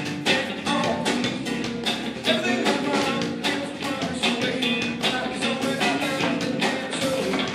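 Live rock band playing an upbeat song: electric guitar, bass and drum kit with percussion, drums hitting in a steady beat, and the guitarist singing into the microphone.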